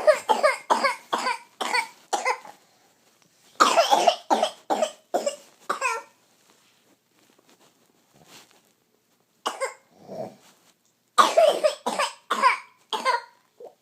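Coughing in fits: runs of quick, hacking coughs, each with a hoarse voiced edge, separated by pauses of a few seconds, with a shorter pair of coughs between the longer bouts.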